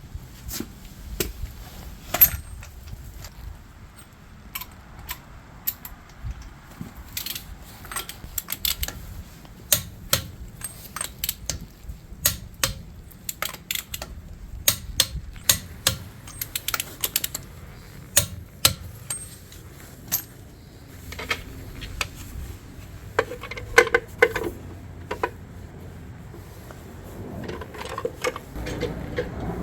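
Irregular metallic clicks and clinks of hand tools and hardware being handled, some single and some in quick clusters, over a faint low background rumble.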